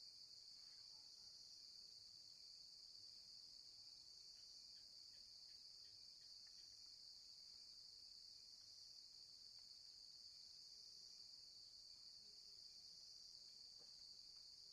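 Near silence with a faint, steady high chirring of crickets, a night-insect ambience bed.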